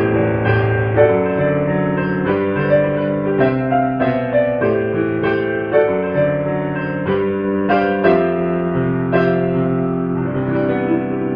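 Background piano music: a calm piece with a steady run of notes over held chords.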